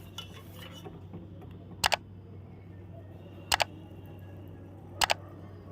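Spiced kadha boiling in an open pot: a steady low hum with three sharp pops about a second and a half apart.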